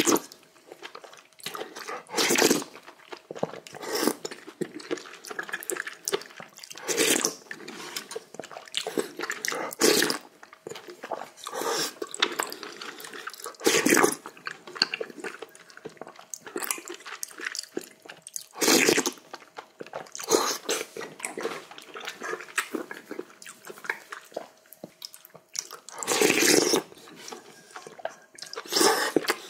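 Close-miked eating: wet slurps of hot seaweed soup with rice and chewing, in short loud bursts every one to two seconds.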